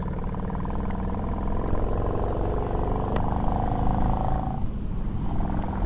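Harley-Davidson Heritage Softail V-twin engine running under way on the road. Its note climbs steadily as the bike accelerates, then falls off about four and a half seconds in.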